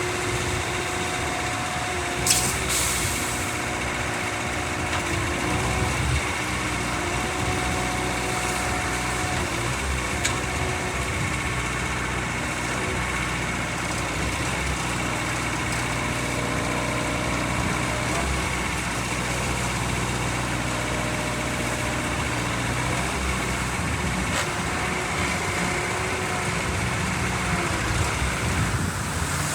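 2016 Bobcat S530 skid steer's diesel engine running steadily, with a sharp knock about two seconds in.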